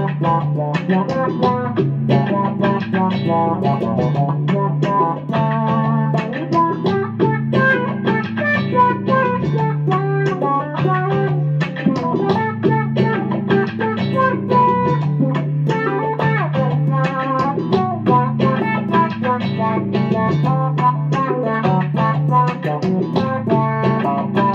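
Electric guitar played through an Electro-Harmonix Micro-Tron III envelope filter pedal, with quick single-note lines over a repeating low bass part.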